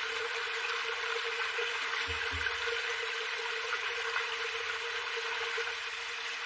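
Steady rushing noise with a faint constant hum, and a soft low thump about two seconds in.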